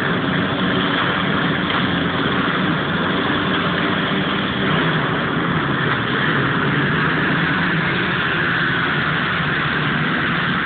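A pack of dirt bikes revving together on the start line, many engines at once, then pulling away as the race starts near the end.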